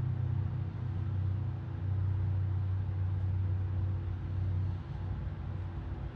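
A steady low rumble with a faint hum over it, easing off somewhat near the end.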